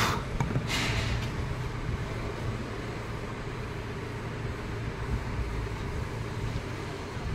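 Steady low engine rumble with a hum, typical of a vehicle engine running nearby. Two short, sharp clicks or scrapes come in the first second.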